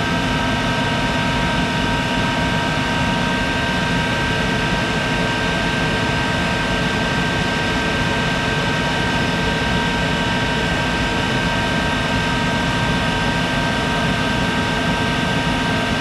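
A 1951 Monarch 10EE lathe running steadily at about 2500 rpm with a steady whine, its tool taking a cut in 4140 pre-hardened steel.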